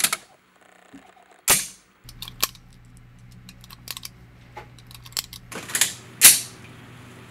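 Sharp metallic clicks and clacks of a Beretta pistol and gear being handled. Two loud clacks come about a second and a half in and near the end, with smaller ticks between, over a steady low hum that starts about two seconds in.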